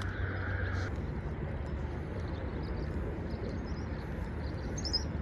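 Outdoor ambience: a steady low rumble with a few faint, high bird chirps in the second half.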